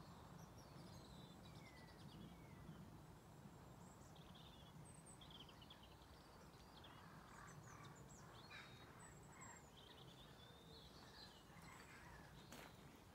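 Faint birdsong: several small birds chirping and twittering in short phrases over a quiet, low outdoor hum, with one faint click near the end.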